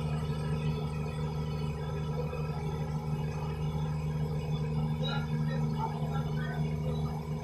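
A steady low hum that runs unchanged throughout, with faint voices of people in the background about five to six seconds in.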